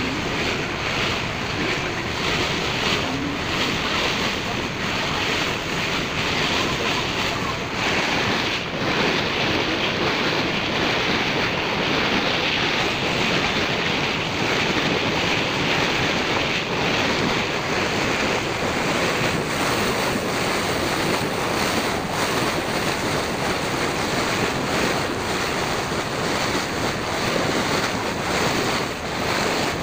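Wind buffeting the microphone over water rushing and splashing along the hull of a moving ferry boat: a steady, unbroken rushing noise.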